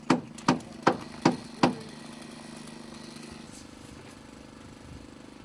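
Hammer striking wooden formwork, five quick strikes about two and a half a second that stop about a second and a half in. A steady engine hum runs underneath.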